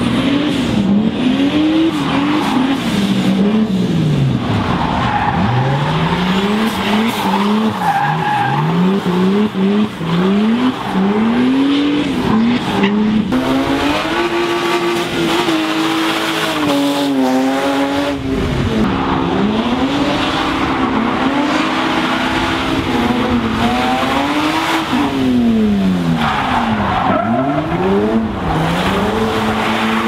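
Drift cars' engines revving up and down repeatedly, rising and falling every second or two, with tyres squealing and hissing as the cars slide. Near the end two engines can be heard revving against each other.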